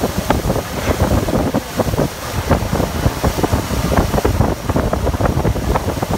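Wind buffeting a phone's microphone aboard a moving boat: a loud, irregular rush with frequent gusty bumps.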